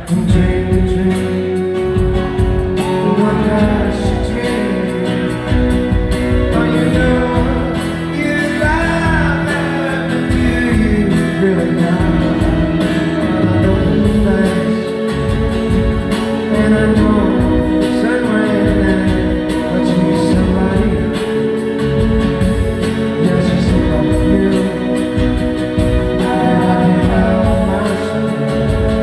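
Live band playing a song, a man singing lead over acoustic and electric guitars and drums, heard loud from the audience in a large hall.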